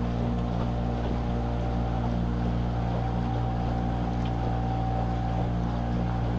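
Boat engine running steadily at cruising speed, an even low drone heard from on board.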